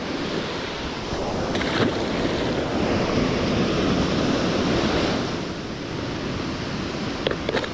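Ocean surf washing onto a beach, a steady rush that swells a little midway, with some wind on the microphone.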